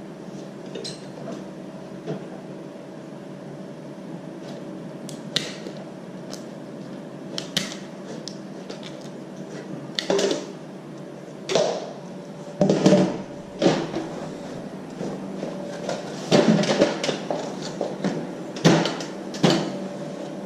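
Irregular knocks and clatter of building materials being handled and fitted, sparse at first and coming more often in the second half, over a steady hum.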